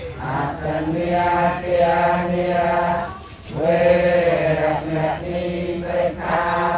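A group of voices chanting a Buddhist chant in unison, holding long notes, with a short break for breath about three seconds in.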